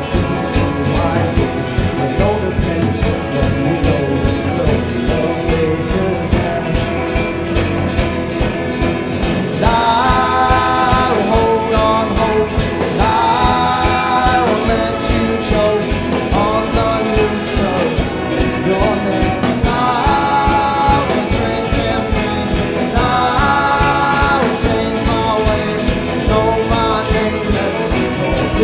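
Live folk-rock band with acoustic guitars, drums, keys, brass, saxophones and sousaphone playing an instrumental stretch of a song. From about ten seconds in, a brighter melody comes in above the band in repeated phrases about two seconds long.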